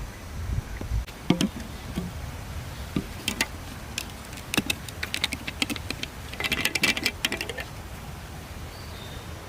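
Light clicks and rattles of small hard gear being handled, with a quick, denser burst of rattling about seven seconds in.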